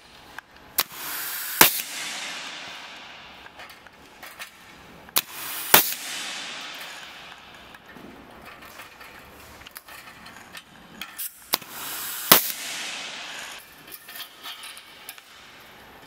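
Air-powered clipping tool closing steel clips onto loops of razor wire, three times: each a short hiss of air, a sharp crack as the clip is crimped, then a hiss of exhaust that fades over a second or two. Light metallic clinks of the wire between.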